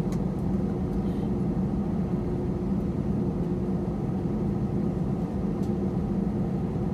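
Steady low drone of airliner cabin noise, the jet engines and airflow heard from inside the passenger cabin, with a couple of faint clicks.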